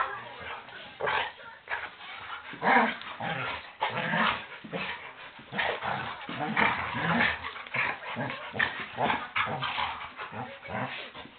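Two dogs play fighting, making short, irregular growls and scuffles at close range.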